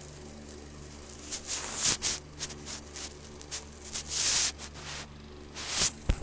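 Electric fan motor humming steadily, with bursts of close rustling handling noise on the phone's microphone three times and a short thump near the end as the phone is moved.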